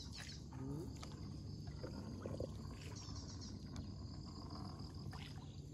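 Insects chirping in short, high, pulsed trills, repeating every few seconds, over a low steady hum.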